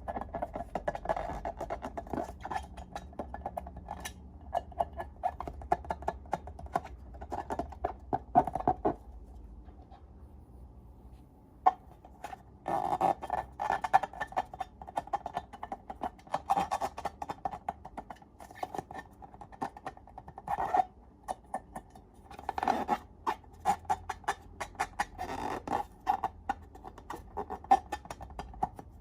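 Slime being squeezed and worked by hand, giving dense sticky crackles, clicks and squelches in bursts, with a quieter pause about nine to twelve seconds in.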